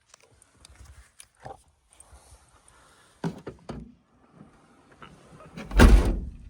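Scattered knocks and clicks, then a loud heavy thud near the end: a car door being shut.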